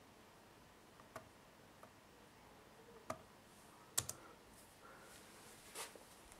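A few scattered key presses and clicks on a ThinkPad laptop keyboard, about half a dozen sharp taps with the loudest about four seconds in. A softer brushing sound follows near the end.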